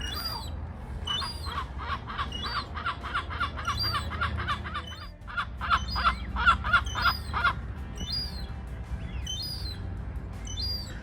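A seagull calling in a fast run of short, repeated notes, about four a second, in two bouts with a brief pause between them, while thin high chirps recur above.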